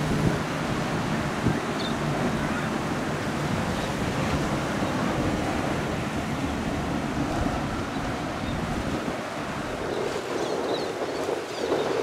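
Wind buffeting the microphone over the steady rush of waves and boat wash, with the drone of center console boats' outboard engines running through the inlet.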